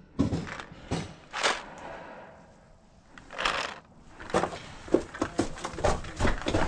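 Hurried footsteps over dry leaf litter and gravel, a quick, uneven run of crunches and knocks starting about four seconds in, after a few scattered rustles.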